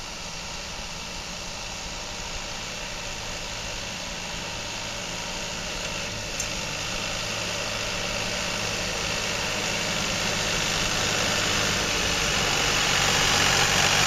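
Goldoni vineyard tractor's diesel engine running steadily as it drives up pulling a harvest trailer, growing steadily louder as it comes close.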